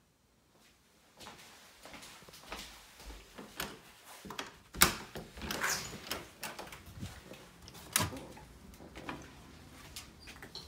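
A door being worked open by hand: a series of clicks, knocks and a scraping rush, with two sharp knocks about five and eight seconds in the loudest, followed by a low steady rumble.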